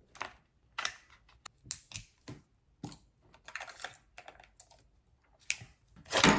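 Irregular small plastic clicks and taps from handling a DJI Osmo Action 3 action camera and its battery and memory-card compartments, with a louder cluster of clicks near the end.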